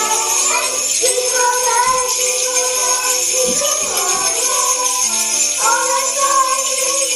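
Sleigh bells jingling steadily along with a recorded song whose melody notes change underneath.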